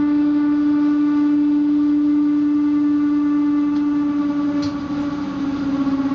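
Passenger train running, heard from inside the carriage: a loud steady drone at one fixed pitch with overtones, which wavers slightly near the end.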